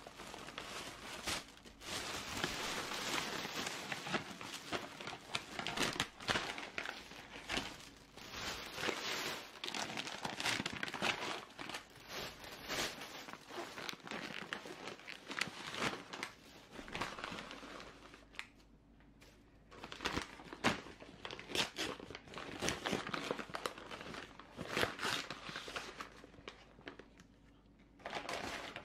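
A plastic carrier bag and paper snack bags crinkling and rustling as they are handled and opened, in irregular bursts, with a quieter lull about two-thirds of the way through.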